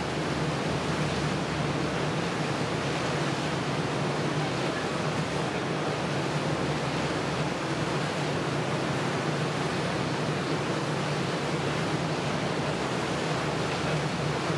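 Steady rushing of wind and churned sea water aboard a moving boat, with a low even hum underneath.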